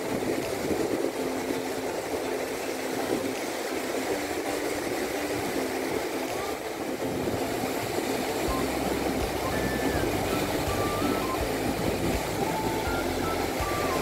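Surf breaking and washing up a sandy beach: a steady rushing noise. About halfway through, soft background music with a low bass and a light melody comes in under it.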